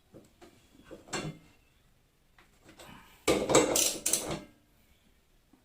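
Clattering and knocking of hard metal parts being handled and pulled during an appliance repair. There is a single clatter about a second in, then a louder run of several sharp rattling clatters a little past halfway.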